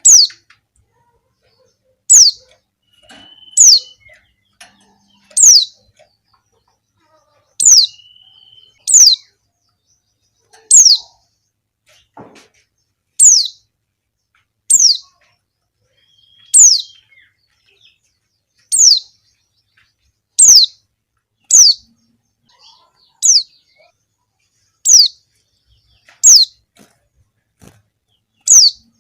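Female white-eye (pleci) calling: short, high calls that each slide quickly downward, repeated about every one and a half to two seconds. This is the call of a female in breeding condition, used to draw out and lure male white-eyes.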